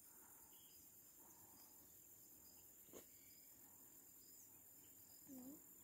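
Near silence, with the faint steady high-pitched drone of insects such as crickets and a single faint click about three seconds in.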